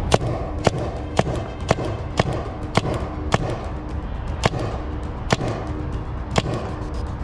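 Paintball marker firing a string of sharp shots, about two a second at first, then spaced further apart, over a steady low background.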